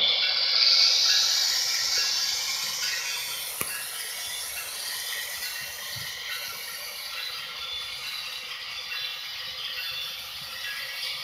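Electric model train running along its track: a steady mechanical rattle and whir of the motor, gears and wheels, loudest in the first two seconds or so and then settling lower, with a few faint clicks.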